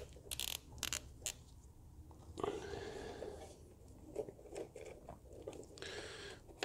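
Faint clicks, scrapes and rustling of small plastic hose fittings being handled and pushed onto the fuel return (leak-off) ports of diesel injectors while a leak-off test kit is connected.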